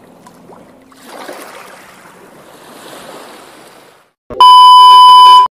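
A soft wash of noise that swells and fades twice, then a loud, steady electronic beep of about a second that cuts off abruptly.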